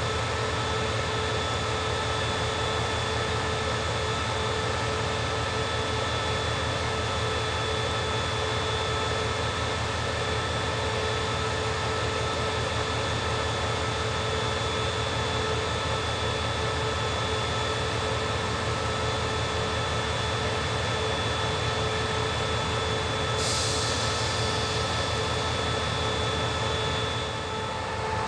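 CRRC CDA5B1 (SRT QSY class) diesel-electric locomotive idling at a standstill: a steady engine rumble with a constant whine on top. About 23 seconds in, a high hiss starts and fades out over a few seconds.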